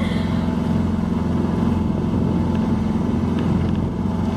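Tanzer 26 sailboat's motor running steadily under way, a constant low drone, with wind and water noise around it.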